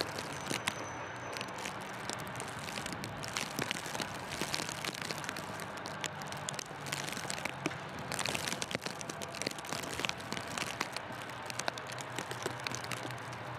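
Snowstorm street ambience: a steady rush of wind and traffic, with many irregular crackling ticks and a faint low engine hum from vehicles on the road.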